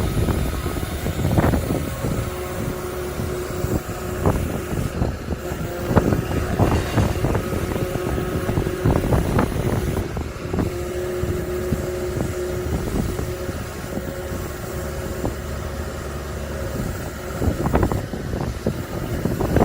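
A motor running steadily with a low rumble, with scattered knocks and clatter over it.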